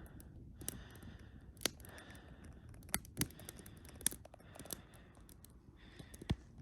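Campfire crackling: irregular sharp pops and snaps over a faint, steady hiss.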